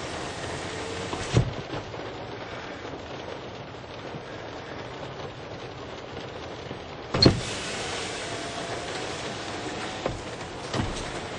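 Power window motor of a Toyota Corolla whining as the glass travels, over steady rain on the car. A sharp knock about a second and a half in as the glass stops, a louder knock about seven seconds in, and the motor whine runs again after it, with two smaller knocks near the end.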